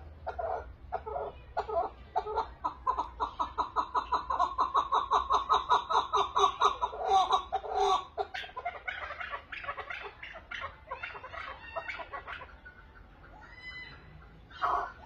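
Chukar partridge calling: a series of clucking notes that speeds up into a rapid run of about five a second, then breaks into looser chuckling calls that fade away, with one loud call near the end.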